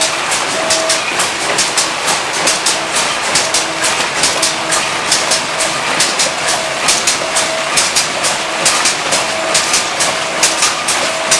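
Several vertical form-fill-seal packing machines running together: a fast, uneven clatter of sharp clicks and clacks as they form, seal and cut bags, over a steady mechanical noise. A short tone repeats roughly once a second.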